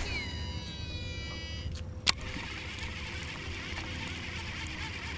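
Fishing reel spool whining as the lure is cast out, a thin whine falling in pitch as the spool slows. The whine stops after nearly two seconds, and a sharp click follows just after. A steady low hum and hiss run underneath.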